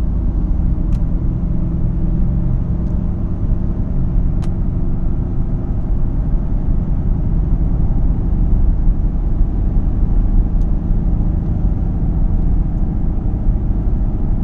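2012 Ford Fusion SEL heard from inside the cabin while driving at about 40 to 50 mph: a steady low hum over road rumble. This is the humming sound the owner is trying to track down.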